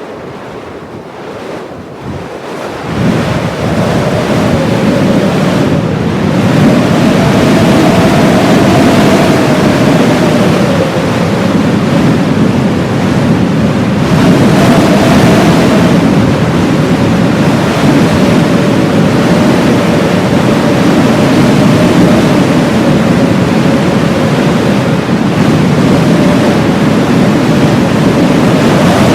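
Blizzard wind blowing hard in a steady rush, with a thin wavering whistle over it. It gets louder about three seconds in.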